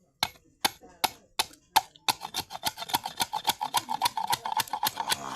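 A blade striking bamboo in sharp clicks, about two a second at first, then a fast run of about eight a second with a ringing tone from about two seconds in.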